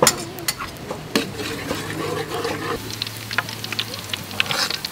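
Chopped garlic sizzling and crackling as it fries in hot oil in a wok, with a sharp metal clink of the ladle on the wok at the start and another about a second in. The crackling grows thicker about three seconds in.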